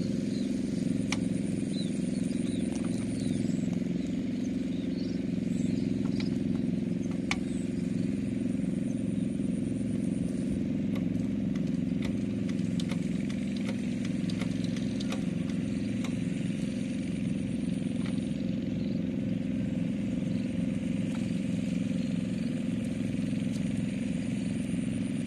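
Single-cylinder diesel engine of a two-wheel hand tractor running steadily, with a few sharp clicks in the first several seconds.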